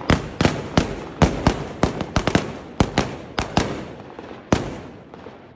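Firecrackers going off on the ground in a rapid, irregular run of sharp bangs, a few a second. The bangs thin out, with a last loud one near the end, then fade away.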